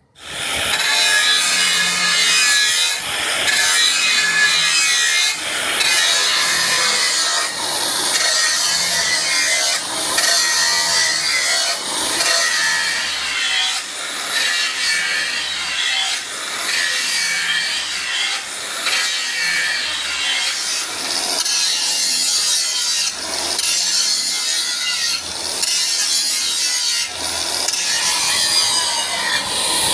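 A hand tool, a saw or rasp, scraping through material in repeated back-and-forth strokes, with a short break between strokes every second or two.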